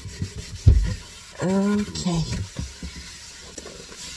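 A sponge rubbing and scrubbing over a cupboard shelf, with a single dull thump less than a second in.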